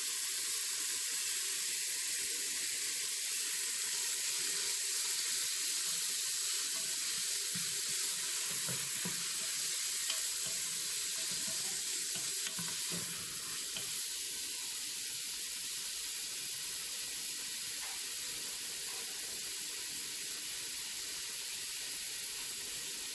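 Mutton pieces sizzling steadily as they fry in an electric cooker pot, with a few faint knocks around the middle.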